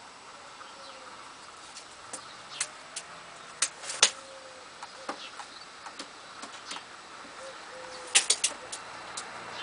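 Domestic pigeons in a loft: soft cooing, with a scatter of sharp taps and clicks that cluster around four seconds in and again near the end.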